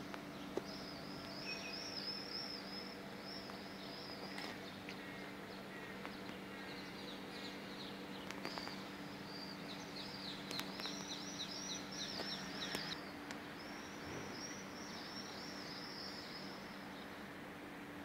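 A flock of swifts screaming as they fly over: trains of shrill, high, down-curving calls come in three bouts, the longest near the middle, over a steady low hum.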